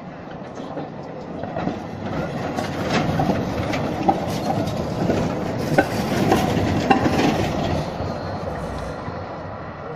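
Simmering-Graz-Pauker articulated tram passing close by on street track: the rumble of its wheels and running gear builds, peaks midway with several sharp clacks of the wheels on the rails, then fades as it goes by.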